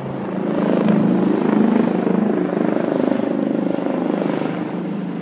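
Police helicopter flying low overhead, its rotor beating in rapid pulses over the turbine. It grows louder to about a second and a half in, then slowly fades as it moves off.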